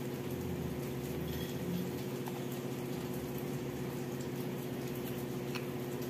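Steady background hum with a hiss underneath and a couple of faint clicks.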